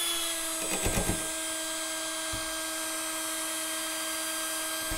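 Handheld drill spinning a mixing rod in a can of Plasti Dip, its motor running at a steady speed with an even whine. A few short clicks about a second in.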